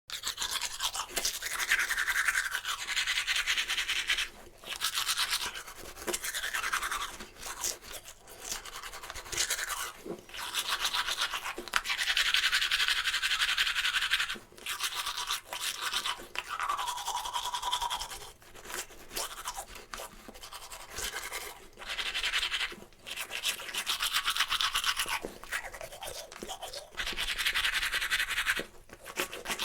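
A toothbrush scrubbing teeth in bouts of quick back-and-forth strokes, each bout lasting from about a second to a few seconds, with short pauses in between.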